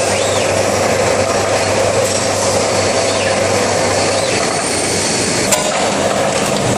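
Steady, loud din of an MT Zanetti transfer machine running under robot loading, with a low hum and a mid-pitched drone. A few brief rising-and-falling whines come as the Fanuc six-axis robot arm moves, and a single sharp metallic click sounds about five and a half seconds in.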